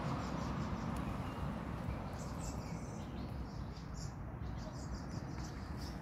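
A steady low outdoor rumble, with a few faint, short, high bird chirps scattered through it.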